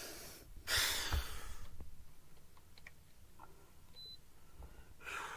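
Quiet room with camera handling noise: a short rush of hiss about a second in that fades away, then faint scattered clicks and one brief high beep about four seconds in.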